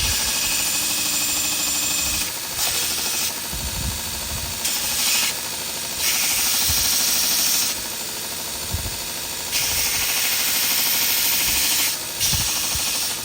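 Grizzly 2x42 belt grinder running with a 120-grit belt while a wooden knife handle is pressed against it in repeated passes. Each pass gives a loud sanding hiss lasting from about half a second to two seconds, over the grinder's steadier running noise.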